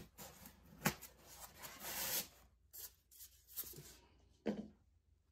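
Foam packaging being handled and cut away by hand: rubbing and scraping with a few sharp clicks, and a soft thump about four and a half seconds in.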